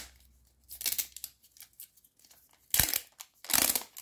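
Wrapping being torn and peeled off a plastic ball-shaped toy capsule in a few short rips, the two loudest in the second half.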